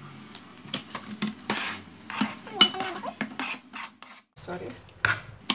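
Kitchen knife knocking and scraping on a plastic cutting board among chopped parsley, in irregular strokes, then parsley being scraped off the board into a glass bowl.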